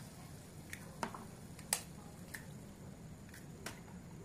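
Eggs being cracked and dropped one by one into a hot steel pan of onion-tomato masala: about six faint, sharp clicks and pops scattered over a few seconds.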